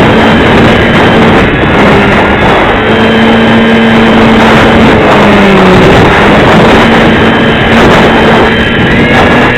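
Strong gusting wind roaring on the microphone, with a steady droning hum underneath that wavers a little in pitch.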